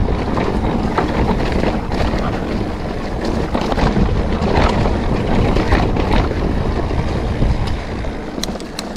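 Wind buffeting the camera microphone and tyres rolling over a dry, bumpy dirt trail as a Specialized Turbo Levo electric mountain bike descends, with frequent clicks and rattles from the bike over the bumps.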